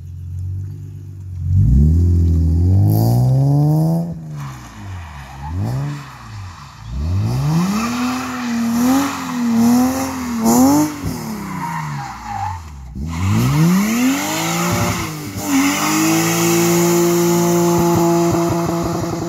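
BMW 328i with a Supersprint race exhaust, its engine revved up and let fall back several times. It then holds a steady pitch for the last few seconds.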